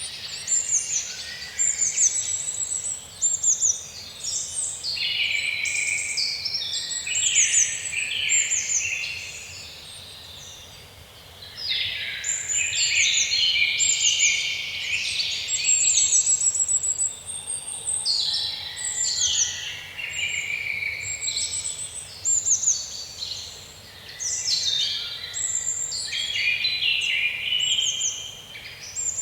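Songbirds singing in a dense chorus of quick, overlapping chirps and trills, easing off for a moment about ten seconds in before picking up again.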